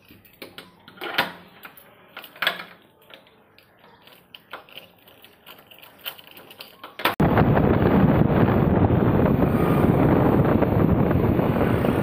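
Brass barrel bolt on a wooden door clanking and a padlock clicking as it is locked with a key, a handful of separate metallic clicks. About seven seconds in it cuts suddenly to a loud, steady rush of wind on the microphone while riding along a road.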